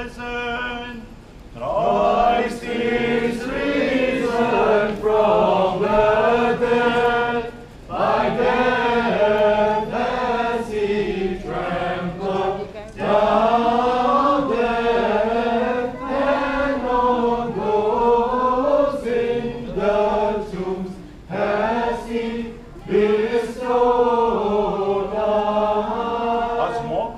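Orthodox liturgical chant sung by several voices, in phrases a few seconds long with short breaks between them.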